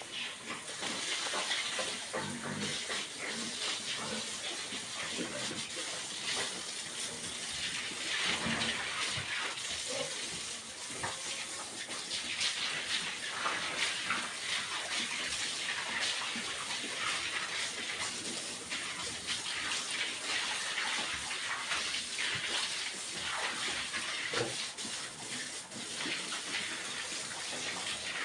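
Water spraying from a garden hose onto a sow and the wet concrete floor of a pig pen: a steady rushing hiss of spray and splashing.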